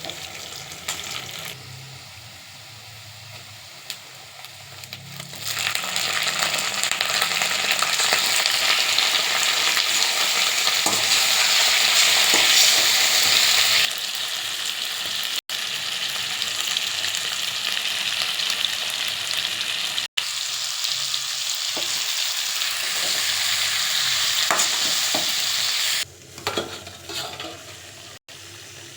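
Chicken frying in hot oil in a pan: a loud, steady sizzle that comes in about five seconds in after a quieter stretch. It cuts out for an instant twice and drops away near the end.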